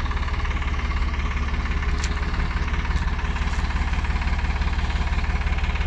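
Tractor diesel engine running steadily, a rapid, even clattering pulse over a strong low hum, with no revving.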